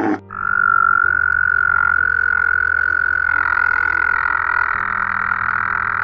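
A frog calling in one long, steady, unbroken note held for about six seconds, growing fuller about halfway through.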